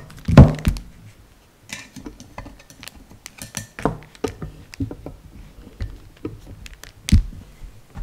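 Irregular metal clicks and knocks from a C-clamp valve spring compressor and the cylinder head held in it being worked and turned by hand, with a sharp knock about half a second in and another about a second before the end.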